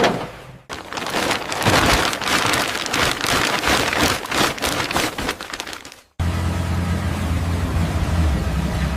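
A dense crackling, rushing noise for about five seconds, ending in a sudden cut. It is followed by a steady low motor drone.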